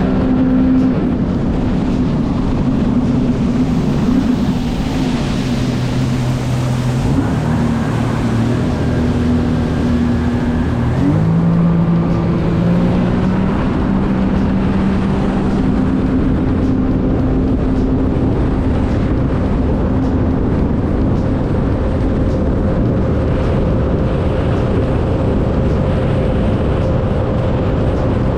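2015 Sea-Doo GTX iS Limited 260 personal watercraft under way, its supercharged three-cylinder engine running steadily. Engine speed shifts a few times in the first half, stepping up about eleven seconds in, then holds steady over a constant rush of noise.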